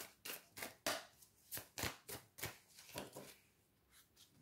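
A tarot deck being shuffled by hand: a quick, uneven run of soft card slaps, about three a second, dying away near the end.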